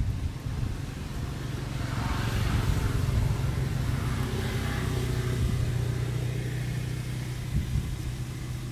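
A motor vehicle's engine running past at a distance: a low steady hum that swells for a few seconds and then fades.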